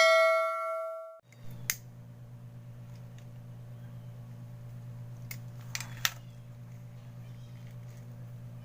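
A ringing chime-like tone fading for about a second, then cut off abruptly. A steady low hum follows, with a few faint clicks.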